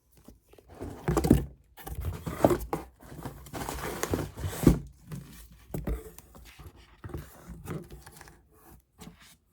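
A cardboard parcel of books being opened by hand: packaging tape and paper tearing in irregular bursts, with scraping and a few dull knocks as the box is handled.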